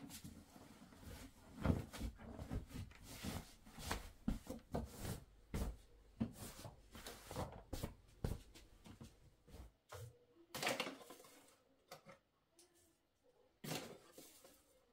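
Bedding rustling as a duvet and knitted throw are smoothed and tucked on a bed, in dense irregular bursts, thinning to a few separate rustles and light knocks in the last few seconds.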